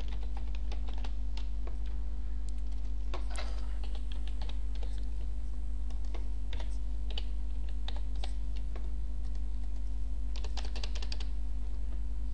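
Computer keyboard typing: irregular keystrokes, with a quick run of keys a little before the end, as HTML is written into a text document. A steady low electrical hum runs underneath.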